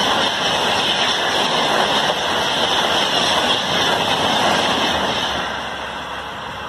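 Gatimaan Express passenger coaches rushing past at speed as a loud, steady roar. It fades away in the last second or two as the end of the train goes by.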